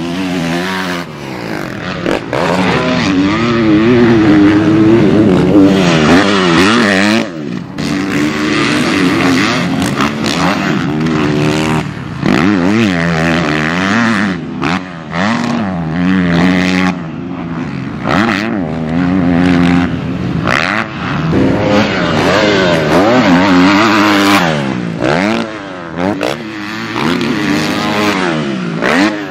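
Pro Circuit Kawasaki KX250F single-cylinder four-stroke motocross bike, its engine revving up and falling back again and again, with several brief cuts where the throttle is shut off.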